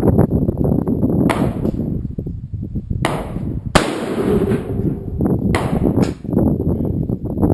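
Gunshots on a rifle range: several sharp reports, the loudest about halfway through, over steady wind buffeting the microphone.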